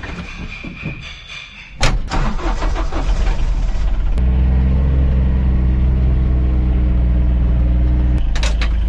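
Fordson tractor engine starting: it catches suddenly about two seconds in, runs unevenly for a couple of seconds, then settles into a steady run.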